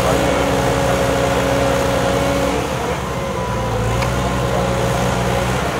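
Diesel engine of a wheeled stilt excavator running steadily while the machine works its arm, the engine note changing briefly about halfway through and then settling back.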